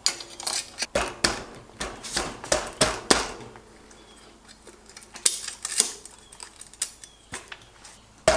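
Metallic clicks, clinks and rattles of a bicycle crankset and chain being handled as the crank spindle is pushed by hand into the bottom bracket. There is a quick run of clinks over the first three seconds, then sparser, quieter clicks.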